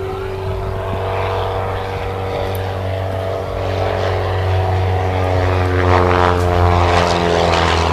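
Propeller biplane's piston engine running as it makes a low pass, growing louder as it nears, its pitch sliding steadily lower as it goes by.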